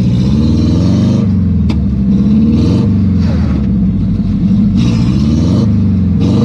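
Car engine revving up and down over and over while stuck in mud, its wheels spinning and digging in, with several short bursts of spinning-tyre and mud noise.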